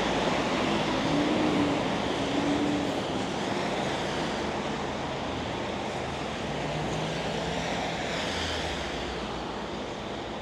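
Steady rushing hiss of monsoon rain and traffic on the wet street, slowly growing quieter, with a faint low engine hum now and then.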